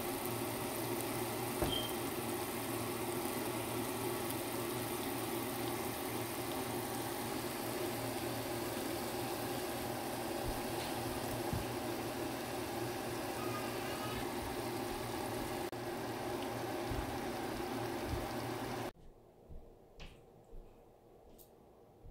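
Steady hum and hiss in the kitchen while the stuffed eggplant curry cooks in the pan on the stove. The noise cuts off suddenly near the end, leaving near quiet with a few soft knocks.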